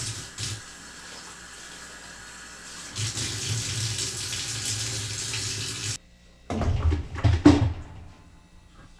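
Water running from a tap, louder from about three seconds in and shut off suddenly about six seconds in, followed by a short run of irregular knocks.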